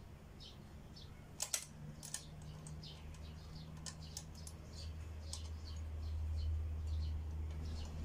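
Two sharp metallic clicks about a second and a half and two seconds in, from hands handling parts on the motorcycle's front end, over small bird chirps repeating in the background and a low hum that swells louder in the second half.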